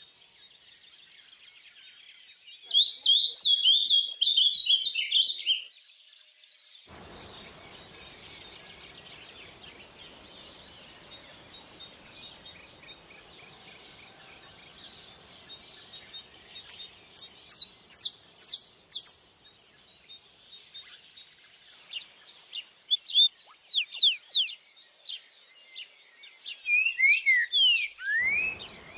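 Songbirds singing and chirping over a steady background chorus, with a loud burst of song near the start and a run of quick falling notes near the end. The rush of stream water comes in suddenly, runs for about fourteen seconds, cuts out just as suddenly, and returns right at the end.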